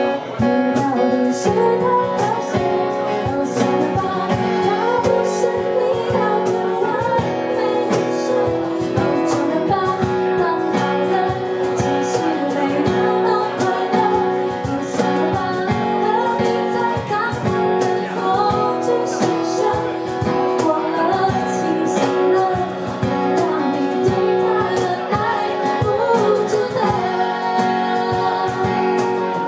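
A band playing a song: a voice sings over guitar, with a steady drum beat throughout.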